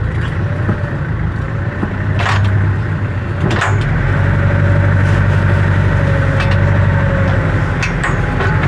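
Tractor engine idling steadily, a loud low drone, with a few sharp knocks and clicks over it; the drone grows a little louder about four seconds in.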